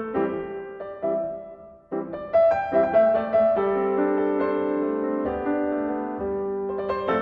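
Background music: gentle piano playing notes and sustained chords.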